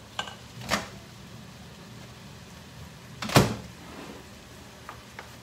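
A few knocks and clatters from utensils and things being handled in a kitchen: a light knock under a second in and a much louder knock about three and a half seconds in, with two faint clicks near the end.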